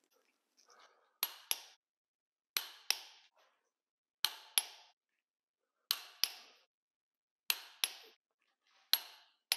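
Click-type torque wrench breaking over as each ARP head bolt on an LS cylinder head reaches 50 foot-pounds. It gives a sharp double click each time, six times, about every one and a half seconds.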